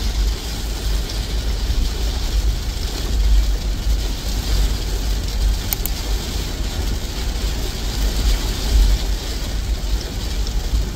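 Car cabin noise while riding in the rain: a steady low rumble with an even hiss over it.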